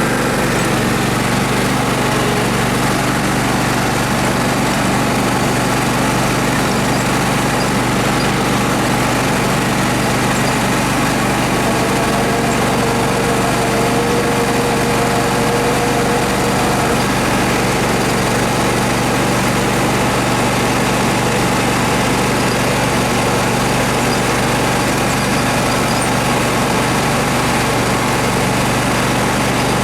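An engine, just started, running loud and steady at one constant speed.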